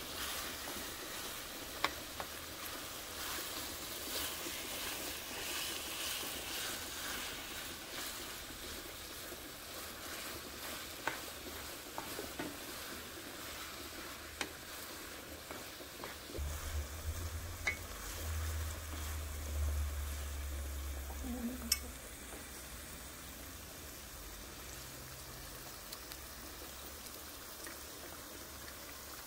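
Ground beef and onion sizzling in a skillet as a wooden spatula stirs it, with occasional sharp clicks of the spatula against the pan. A low rumble comes in for a few seconds past the middle.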